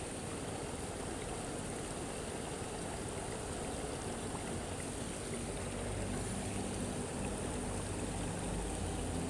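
Steady rushing of a muddy river's current flowing past the bank.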